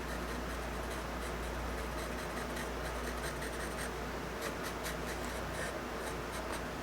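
Short, scratchy strokes of a drawing tool on paper, coming in a quicker run in the second half, over a steady low hum.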